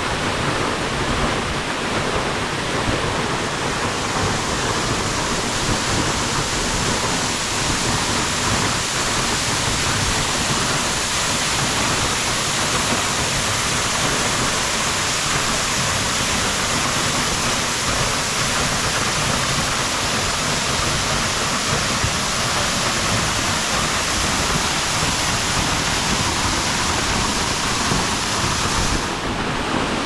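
Waterfall pouring down a rock face into its plunge pool: a steady, unbroken rush of falling and splashing water, heard close up at the base of the fall.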